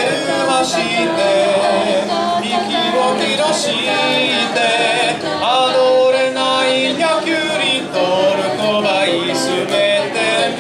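An a cappella vocal group singing in harmony, several voices together with no instruments.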